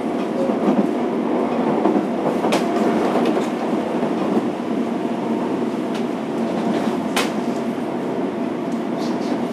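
Running noise heard from inside a Fukuoka City Subway 1000-series car under way, a steady rumble of wheels on rail with two sharp clicks from the track.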